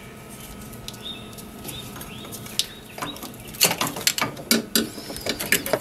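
Cruise control actuator and its cable being handled and worked free from the engine bay, giving a cluster of light plastic-and-metal clicks and knocks in the second half.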